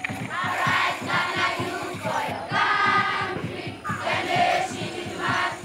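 Background music: a choir singing over a fast, steady beat.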